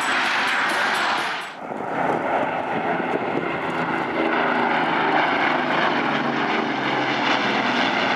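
Music with a tambourine-like beat cuts out about a second and a half in. Then come piston-engined propeller aircraft flying over, a steady engine drone.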